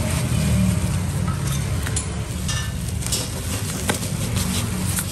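Bubble wrap and plastic crinkling and crackling as it is pulled off new exhaust pipes and a muffler tip, over a steady low hum.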